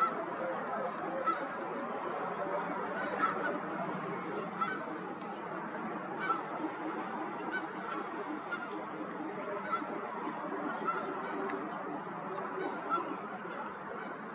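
Short animal calls repeating roughly once a second over a steady, noisy background din.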